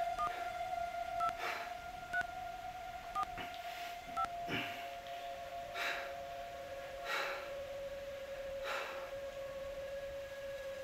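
Mobile phone keypad beeps as a number is dialled: five short beeps about a second apart, over a steady held tone that drops in pitch about seven seconds in.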